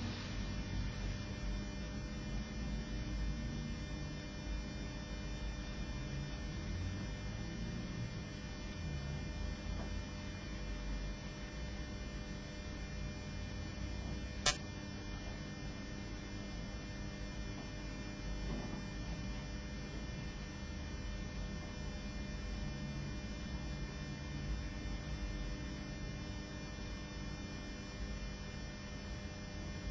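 Steady electrical mains hum, a buzz made of many even tones with a low rumble beneath, and a single sharp click about halfway through.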